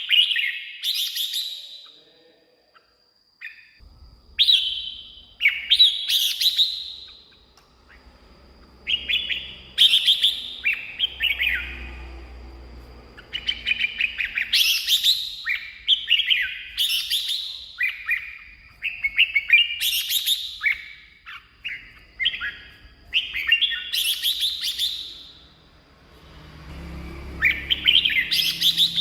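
Red-whiskered bulbul singing: loud, short whistled phrases repeated every second or two, with a brief pause a few seconds in.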